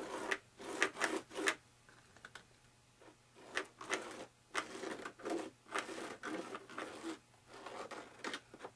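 A thin stick scraping and dabbing epoxy on the taped foam wing and in the foam cup: a series of short, irregular scrapes and rubs.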